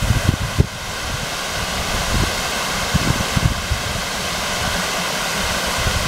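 Fountain jets spraying and splashing down into the pond basin: a steady rushing hiss of falling water. Low gusts of wind rumble on the microphone now and then.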